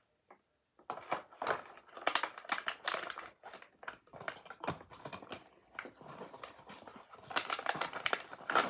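A crunchy squishy toy being squeezed over and over, giving dense irregular crackling and crunching that grows louder near the end.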